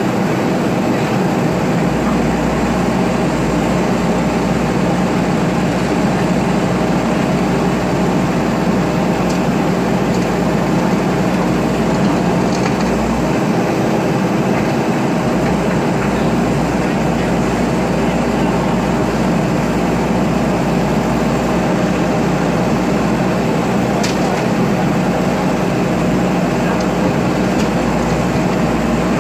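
JCB backhoe loader's diesel engine running steadily at working revs while it loads with its front bucket, a continuous low drone.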